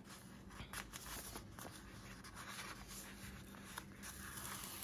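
Faint rustling and scraping of paper as a sticker strip is handled and smoothed onto a planner page, with small scattered clicks.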